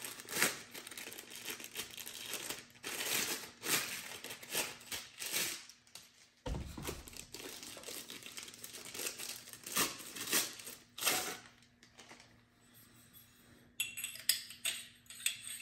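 Plastic wrapping crinkling and tearing as the pieces of a two-piece paintball barrel are unwrapped by hand. The crinkling runs in irregular bursts, eases off about two-thirds of the way in, and a few light clicks of the barrel pieces being handled follow near the end.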